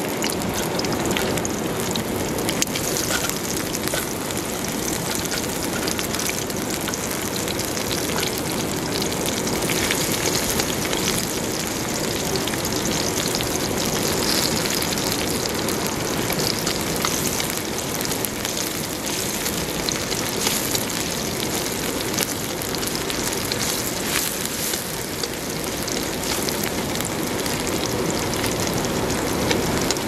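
Minced garlic and sliced chili sizzling in hot oil in a wok: a steady hiss with fine crackling.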